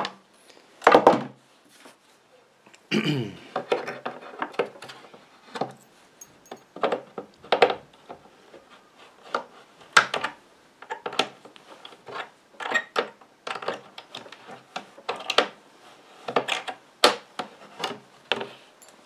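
Pliers gripping, twisting and pulling staples out of a particle-board drawer side: a string of irregular sharp metal clicks and knocks, with the drawer knocking against a wooden block, the loudest knock about a second in. A brief falling squeak comes about three seconds in.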